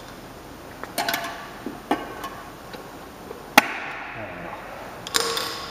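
Metal tire levers clicking and clinking against the spokes and rim of a spoked dirt bike wheel while the tire is pried over the rim lock. A few scattered sharp clicks, the sharpest about three and a half seconds in, and a quick cluster near the end.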